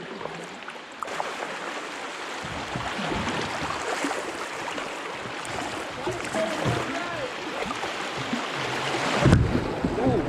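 Rushing water of shallow river rapids, a steady hiss that grows louder about a second in. A dull thump comes near the end.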